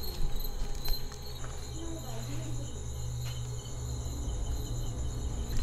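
Crickets trilling steadily in high continuous tones, over a low rumble.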